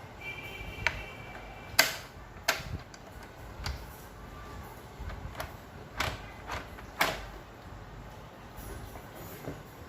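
A handful of sharp knocks and clatters of hard parts being handled and set down while an evaporative air cooler is worked on, the loudest about two seconds in. A faint high steady tone sounds during the first two seconds.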